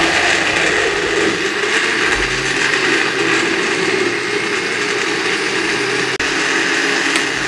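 Electric blender running steadily at high speed, pureeing peeled mango pieces with a glass of water into a smooth pulp. The sound briefly drops out about six seconds in.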